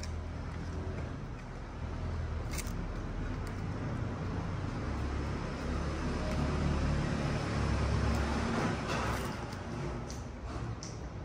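Low rumble of a motor vehicle engine, swelling about five seconds in and easing off near the end, with a single sharp click a couple of seconds in.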